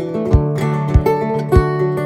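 Background music: strummed acoustic guitar with a steady low beat.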